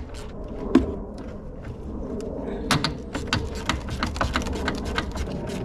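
Hand ratchet wrench clicking in quick back-and-forth strokes from about halfway through, loosening a rusty, penetrating-oil-soaked bolt, with a single sharp click about a second in.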